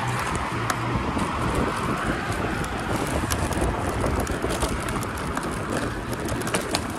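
Wind rushing over the microphone and tyre noise from an electric scooter riding along a concrete footpath, with scattered small clicks and rattles throughout.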